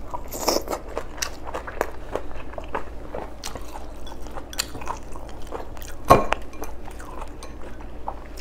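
Close-miked eating: chewing and biting with many small wet clicks and smacks. One sharper knock comes about six seconds in.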